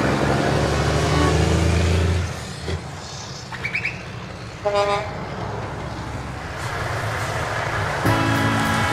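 A vehicle engine running steadily, dropping away after about two seconds, with a short horn toot about five seconds in, and the engine coming back up near the end.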